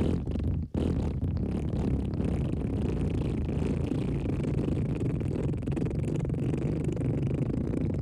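Wet fart sound effect: a few short sputters, then from under a second in one long, unbroken, deep, wet-sounding blast.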